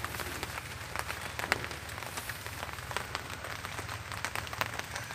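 Scattered light crackling and rustling as hands rub white powder over a dead snake's skin on a large leaf, over a faint low hum.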